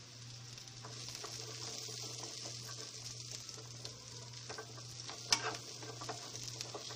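Green beans sizzling in melted butter and garlic in a nonstick frying pan as they are turned with tongs. A few clicks of the tongs against the pan, the sharpest about five seconds in.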